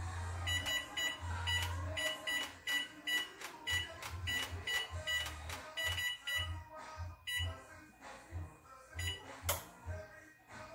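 Oven control panel beeping: a fast, irregular string of short, high electronic beeps as the oven is set to 420 degrees, stopping about nine seconds in, followed by a sharp click.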